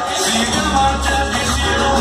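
Loud Latin tropical dance music played over a sonidero sound system, with a pulsing bass beat.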